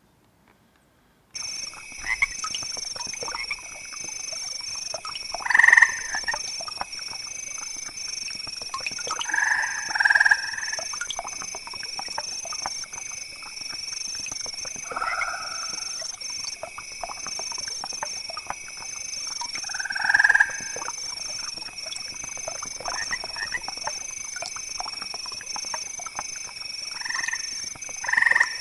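Wetland animal chorus: a steady, evenly pulsing high calling starts about a second in, with louder, lower calls every few seconds, the loudest near 6, 10 and 20 seconds.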